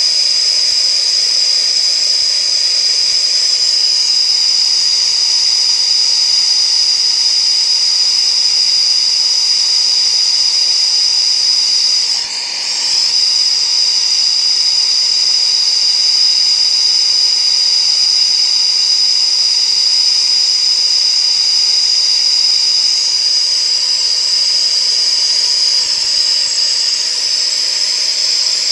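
Air-acetylene torch (straight acetylene, no oxygen) burning steadily against a steel round bar: a continuous high-pitched hiss. It dips briefly about twelve seconds in.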